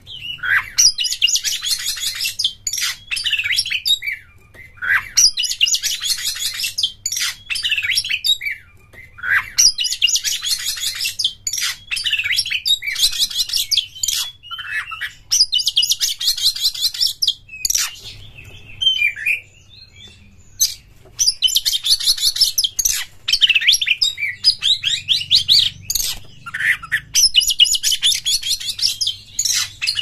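Oriental magpie-robin singing: about six phrases of rapid, dense chattering trills, each about two seconds long and coming every four to five seconds, with clear swooping whistles between them.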